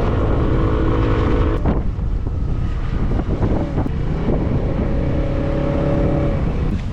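Wind rumbling on the microphone over a motor vehicle's engine running steadily. The engine's even hum drops out about a second and a half in and comes back about four seconds in.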